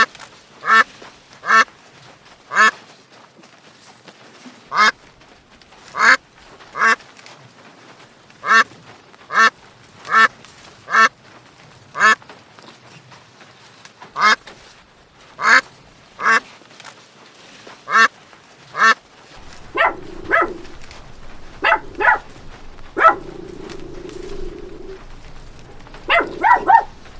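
A duck quacking repeatedly in short, single quacks, roughly one a second. About two-thirds of the way in the background gets louder and a lower, drawn-out call lasts a couple of seconds among further quacks.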